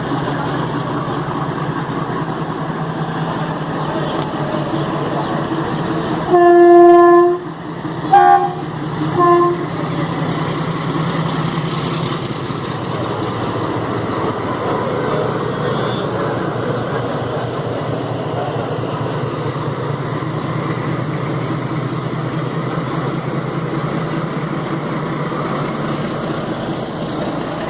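Diesel shunting locomotive (WDS 6R) running steadily as it moves along the track. About six seconds in it sounds one long horn blast, the loudest sound, followed by two short toots.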